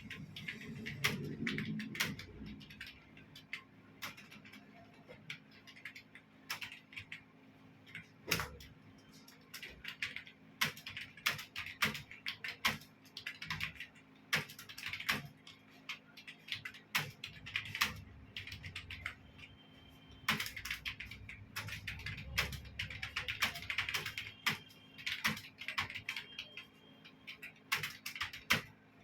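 Computer keyboard being typed on quickly and steadily, key clicks in rapid irregular runs with brief pauses between words, as in a timed typing test.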